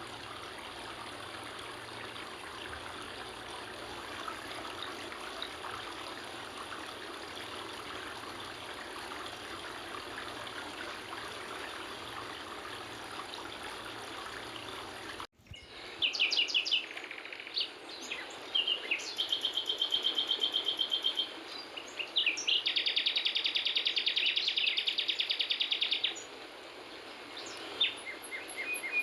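Steady rush of stream water for about the first half, then an abrupt cut to wild songbirds calling over a quieter background: short chirps and long, rapid trills.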